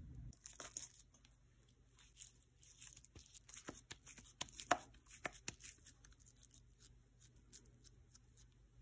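Hands pressing and patting raw ground beef into burger patties: a string of soft, wet smacks and small clicks, the loudest about halfway through, thinning out toward the end.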